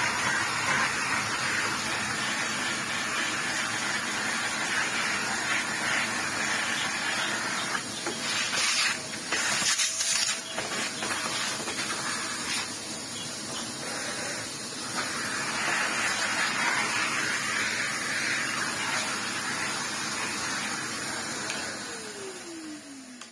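A vacuum cleaner running with a steady rushing of air, its sound changing in ragged bursts around the middle as it sucks up dirt; near the end it is switched off and the motor winds down in a falling whine.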